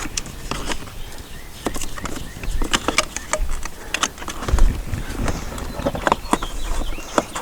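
Irregular small plastic clicks and rattles from a power window switch, its wiring connector and the door trim panel being handled.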